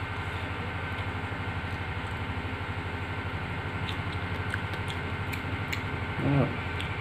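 A steady low hum with a fast flutter, with faint scattered clicks and crackles from a pomegranate being broken open and picked apart by hand. A brief hummed 'mm' about six seconds in.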